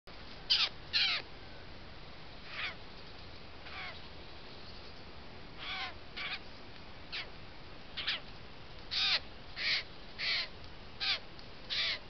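Eurasian jays calling with short, harsh screeches, about a dozen at irregular intervals, some in quick pairs.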